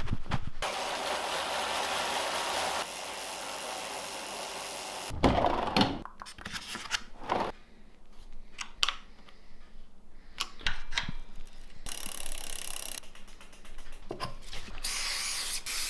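A long, steady spray hiss for about five seconds while the bike is prepped, followed by a string of clicks and knocks from tools being worked on the bike, with shorter spray hisses near the end.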